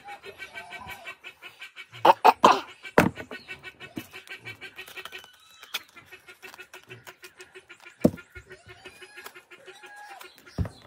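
A chicken clucking in a rapid, even run of pulses, broken briefly about halfway through. Loud sharp knocks of a knife cutting into jackfruit come in a cluster about two seconds in, again about eight seconds in, and once near the end.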